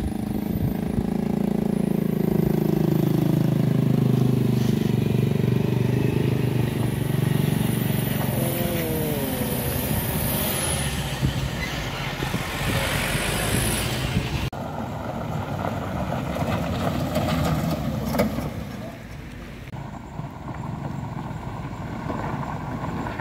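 Vehicle engine running hard under load, its pitch slowly shifting, strongest in the first half; the sound changes abruptly about two-thirds through and again near the end.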